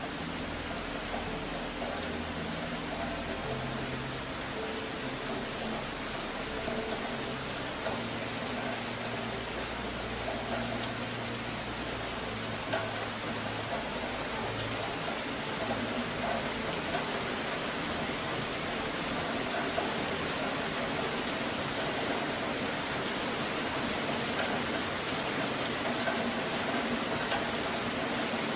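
Steady, dense rain sound with low sustained music notes underneath, shifting every second or two.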